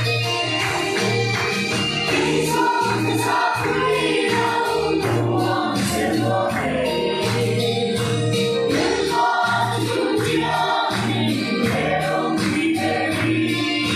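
Children's choir singing a gospel song in Mizo in unison, accompanied by a bass line and a steady beat.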